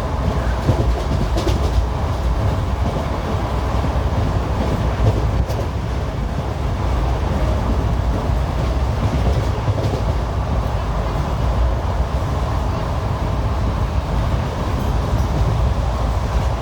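ICF passenger coach running over the track: a steady rumble of wheels on rail, with a few sharp clicks in the first six seconds.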